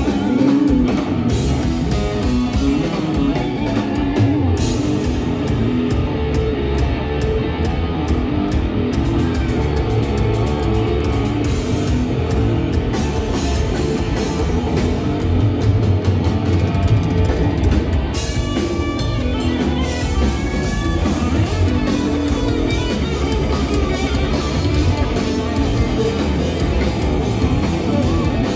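Live rock trio playing loud: electric guitar, electric bass and drum kit together.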